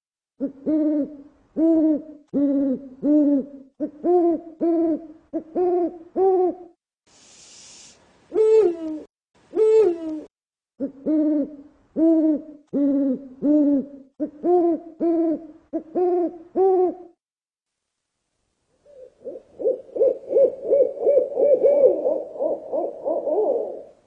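Owl hooting: a long series of short hoots, each rising then dipping in pitch, about two a second in runs with short breaks. Near the end comes a faster run of quick, quavering hoots.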